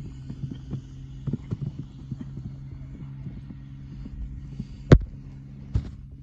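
Horse cantering on dry turf, its hoofbeats a scatter of soft knocks over a steady low hum. Two sharp, loud knocks come near the end as the horse jumps a fence.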